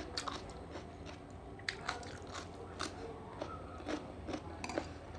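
A person chewing and biting a mouthful of seafood fried rice, with irregular wet mouth clicks and smacks.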